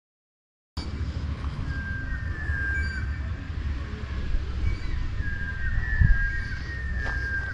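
Wind rumbling and buffeting on the microphone, starting suddenly under a second in. Over it, birds give a series of drawn-out whistled notes that fall slightly in pitch.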